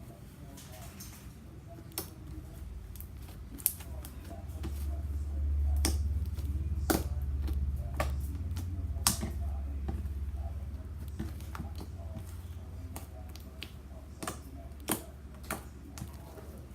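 Glitter slime being poked and squished by hand, giving irregular sharp clicks and pops. A low rumble rises about four seconds in and fades by about ten seconds.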